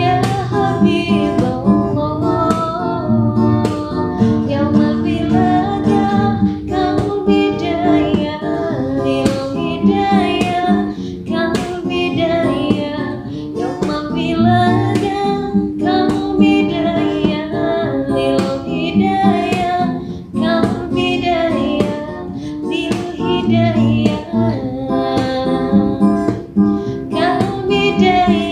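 A woman singing a sholawat, an Islamic devotional song, in a flowing melody, accompanied by steady strumming on an acoustic guitar.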